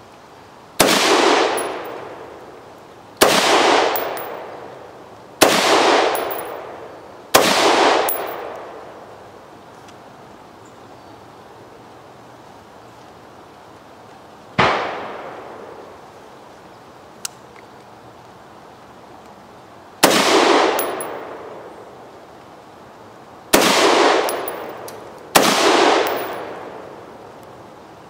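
Colt AR-15 A2 rifle firing 5.56 NATO rounds in single, unevenly paced shots, eight in all. Each shot is a sharp crack with a long echoing tail.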